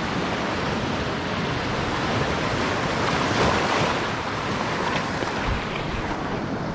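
Big waves breaking and washing over shoreline rocks, a steady churning surf with a louder surge a little past halfway.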